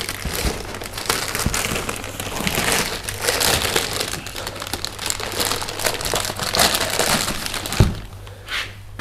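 Clear plastic packaging bag crinkling and rustling against a cardboard box as a new turbocharger is unwrapped by hand. A single thump comes near the end.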